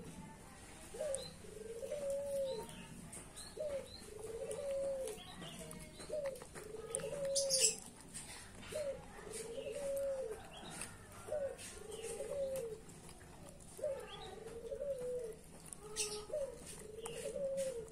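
A dove cooing over and over in an even rhythm, roughly one call every second and a bit: a short rising note followed by a longer arched note. About seven seconds in there is a brief scratchy noise.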